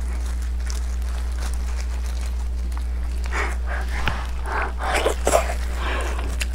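Plastic-gloved hands pulling cut string netting off a saucy braised pork knuckle: short, irregular wet handling and rustling noises in the second half, over a steady low electrical hum.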